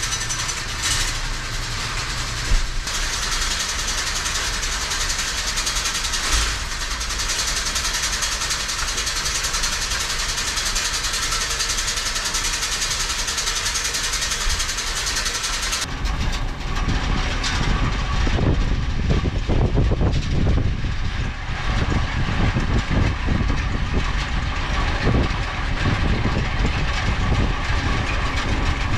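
Hay bale elevator running with a steady chain clatter as square bales come up. About halfway through the sound changes abruptly to a heavier, lower rumble with irregular clanks.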